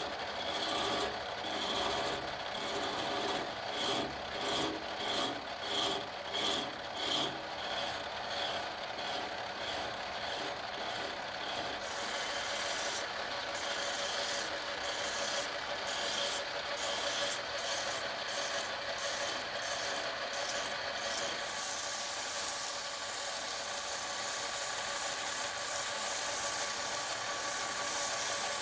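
Metal lathe running steadily while a hand file is worked against the spinning ebony-and-brass handle in strokes about two a second. From about thirteen seconds abrasive cloth rubs on the turning handle, first in similar strokes, then as a steady hiss from about twenty-one seconds.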